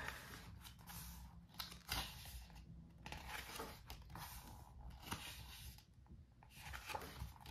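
Pages of a glossy photobook being turned and handled: several soft paper swishes and rustles.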